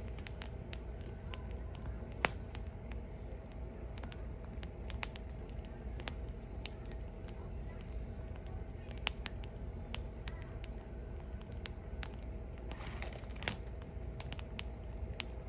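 Burning firewood crackling, with irregular sharp pops over a low steady rumble; two louder pops, about two seconds in and near the end.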